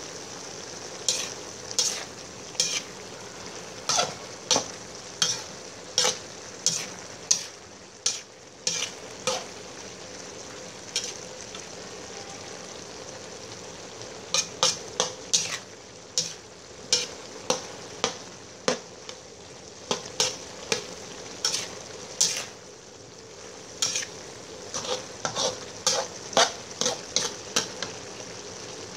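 Food sizzling in a pan while a utensil stirs it, knocking against the pan in sharp ringing clinks, about one or two a second in irregular runs with a few pauses.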